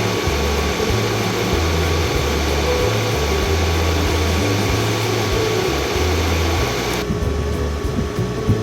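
Portable air conditioner running, a steady rush of fan air with a faint steady tone; the higher part of the noise drops away about seven seconds in. Background music with a pulsing bass plays underneath.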